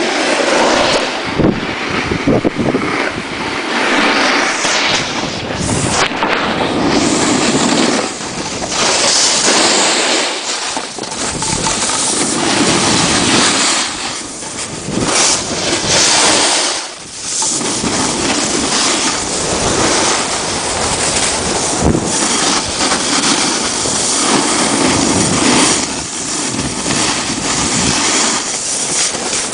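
A snowboard sliding and scraping over packed snow at speed, with wind rushing over the handheld camera's microphone. A loud, steady rushing noise that eases briefly a few times.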